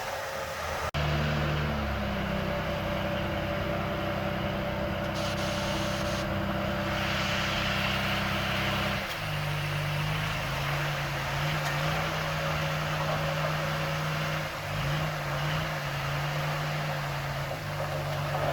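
Heavy diesel earthmoving machinery engine running steadily, with an abrupt break about a second in and a shift in its tone about halfway through. The pitch rises and falls slightly a few times after that.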